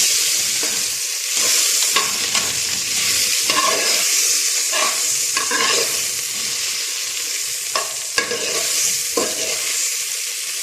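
Cauliflower florets sizzling in melted butter in a cooking pot, a steady frying hiss, with a few knocks and scrapes of a utensil stirring them against the pot.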